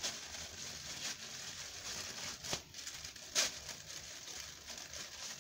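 Paper packaging rustling and crinkling as it is handled and pulled open at a sticker seal, with two sharp taps about a second apart near the middle.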